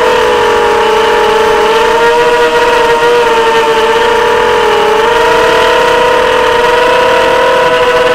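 Electric motors and propellers of an FPV drone, heard close up from its onboard camera: a loud, steady whine made of several tones that drift slightly in pitch with the throttle, dipping and recovering about five seconds in.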